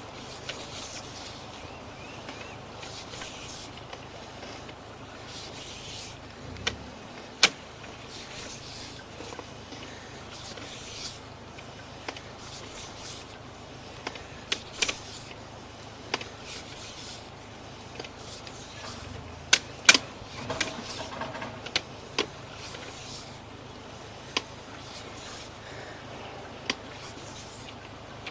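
Sewer inspection camera's push cable being pulled back through the line, a steady rustling with repeated short hisses and scattered sharp clicks and knocks, loudest twice about two-thirds of the way through.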